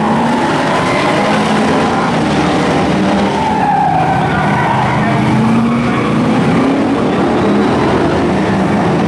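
Heritage F1 stockcars' V8 engines running hard as a pack of cars races through a corner, with engine pitch rising and falling and some tyre squeal.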